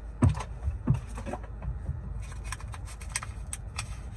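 Rustling and small clicks of a torn plastic packet and a disposable glove being handled, with two short thumps in the first second, over a steady low rumble inside the car.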